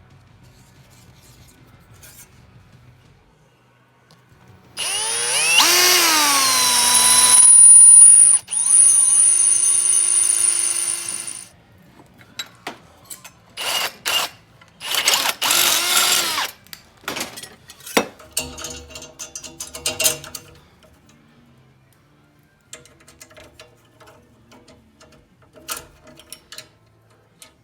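A handheld electric power tool runs in bursts. The first run is long, about seven seconds, starting about five seconds in, with a steady high whine. Two shorter runs follow, then light clicking and tapping.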